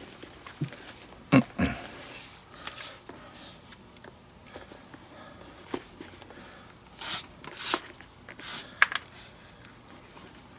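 Leather lace being drawn through the lace holes of a baseball glove under repair, in a series of short rasps about a second apart, with a few light clicks and knocks as the glove and lace are handled.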